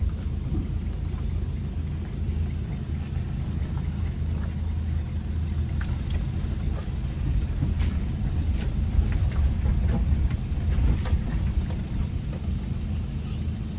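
Car engine and tyre rumble heard inside the cabin while driving slowly over a rough, potholed dirt track, with scattered faint knocks and rattles from the bumps.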